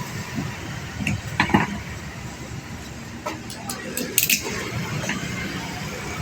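A few sharp metallic clinks and knocks, like tools or metal parts being handled, over steady background noise.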